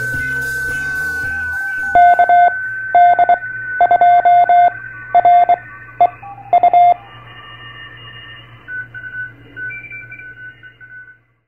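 The tail of a short intro music track gives way to Morse code: one steady beep keyed on and off in dots and dashes for about five seconds, like a CW transmitter's tone. A few fainter tones follow and fade out.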